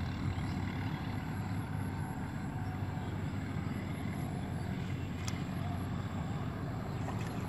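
A steady low rumble throughout, with a faint click about five seconds in.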